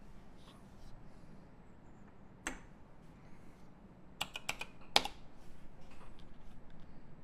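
Typing on a custom mechanical keyboard with lubed Cherry Hyperglide Black linear switches on a polypropylene plate, with GMK keycaps. There are a few scattered keystrokes at first, then a quick cluster of strokes about four seconds in with one loud stroke around five seconds, followed by a steady run of keystrokes.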